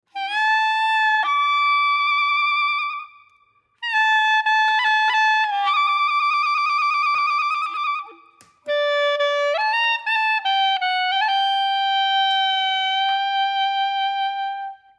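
Music: a solo wind-instrument melody played in three phrases with short breaks between them, the last ending on a long held note.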